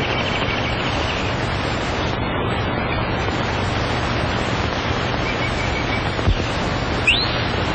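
Steady rushing hiss with a low hum beneath it. There is a single thump about six seconds in and a short rising chirp near the end.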